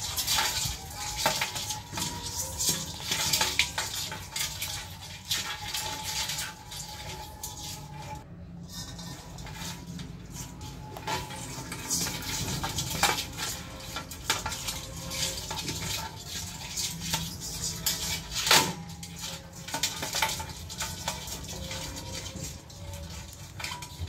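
Live rice crabs' legs and claws clicking and scraping against a wet stainless steel bowl as a hand moves them about. The clicks and scrapes come irregularly, with a sharper knock about eighteen seconds in.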